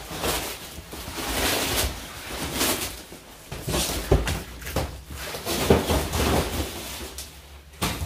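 Handling noises: irregular rustling with several knocks and bumps, loudest about four seconds in and again near the end.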